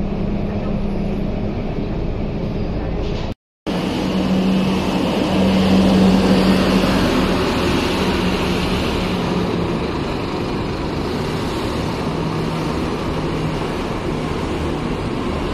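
Scania K230UB single-deck bus's 9-litre five-cylinder diesel engine running with a steady drone, first heard from inside the cabin as the bus drives along, then, after a brief cut, from outside as the bus pulls away, loudest a few seconds after the cut and easing off as it moves into the distance.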